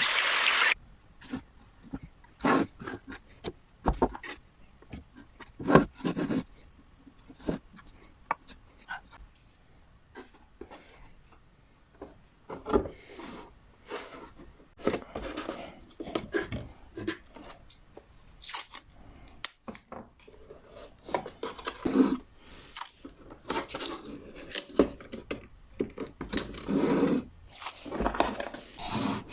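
Hand woodworking on wooden box parts: irregular knocks and taps of wood on wood, with spells of scraping and rubbing.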